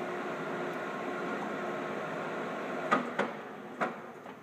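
Allen MAT drill press running with a steady hum, then three sharp clunks from its controls about three seconds in, after which the running sound dies away as the machine winds down.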